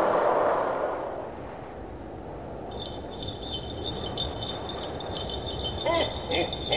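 A swoosh fading away, then a shimmer of jingling bells and chimes from about three seconds in. A few short pitched notes come near the end.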